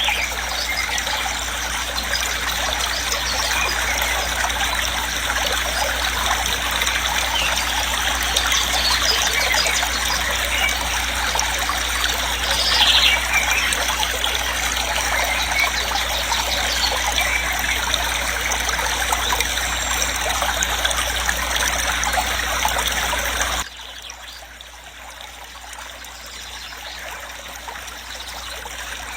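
Waterfall rushing: a steady, loud hiss of falling water. About three-quarters of the way through it suddenly becomes quieter and duller.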